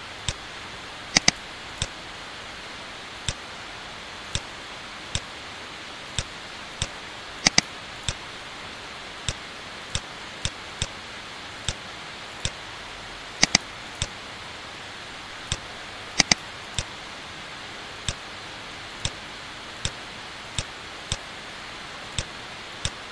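Computer mouse clicking at an irregular pace, about one click every second, with four quick double-clicks spread through, over a steady hiss.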